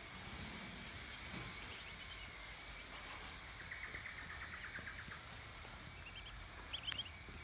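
Soft bird chirping over a faint, steady outdoor background hum. A short rapid trill of calls comes about halfway through, and a few quick high chirps near the end.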